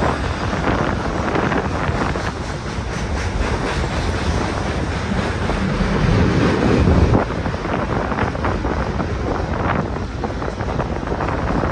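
Gusty wind buffeting the microphone over the rumble of a freight train rolling past. A louder swell builds about six seconds in and drops off suddenly about a second later.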